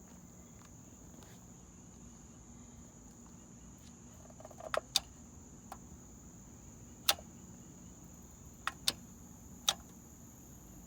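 A series of about seven sharp clicks, two of them close together, over a faint steady high-pitched whine and a low hum.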